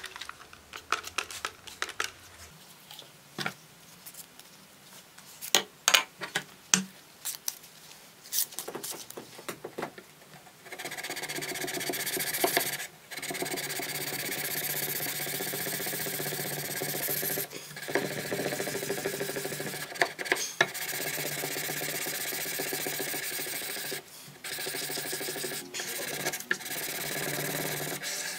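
A 1000-grit sandpaper strip on a block is rubbed by hand along a heat-treated steel knife blade, a finishing pass. For about the first ten seconds there are only scattered clicks and knocks of handling. Then continuous rubbing strokes start, broken by a few brief pauses.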